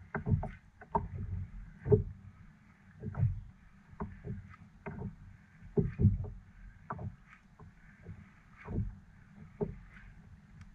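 Water slapping and knocking against the hull of a small boat such as a kayak: irregular low thumps about once a second over a faint steady wash.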